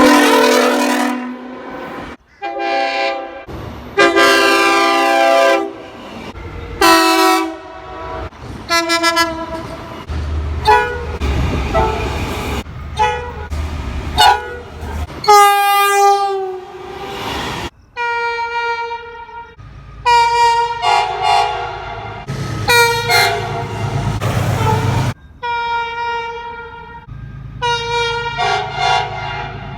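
Train horns blowing one after another: a string of short and long blasts from several different horns, each a steady chord. A low rumble from the passing train runs under some of them.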